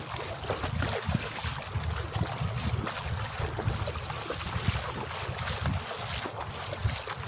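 Wind buffeting the microphone in uneven low gusts, over a steady wash of moving water.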